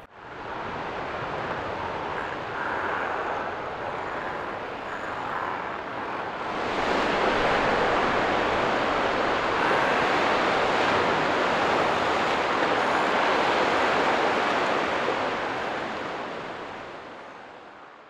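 Sea surf breaking against a rocky cliff foot, with wind: a steady rushing noise that grows louder about seven seconds in and fades out near the end.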